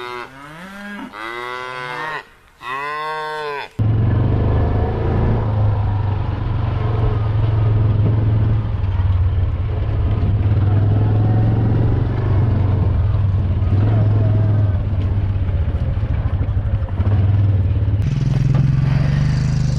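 Cattle mooing, several long calls that rise and fall in pitch over the first four seconds. Then a motor vehicle engine running steadily, its pitch stepping up slightly near the end.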